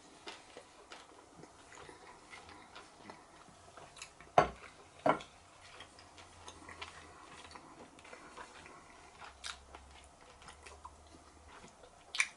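Someone eating chewy calamari: quiet chewing and scattered small clicks, with two sharper knocks about four and five seconds in and another near the end.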